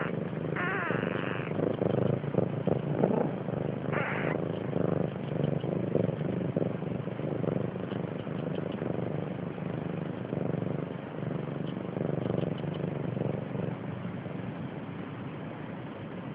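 A cat purring close up, a steady low rumble. A newborn kitten gives two short, high, wavering mews, about half a second in and about four seconds in.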